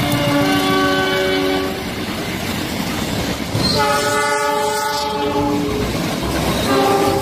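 Diesel locomotive air horns sounding three long chord blasts of about a second and a half each. Under them runs the rumble and wheel clatter of a passing train.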